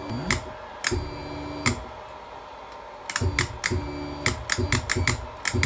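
Motor drive of a drill press's raising knee winding down, then run in short bursts, each start and stop marked by a sharp click. The clicks come singly at first, then in a quick string in the second half.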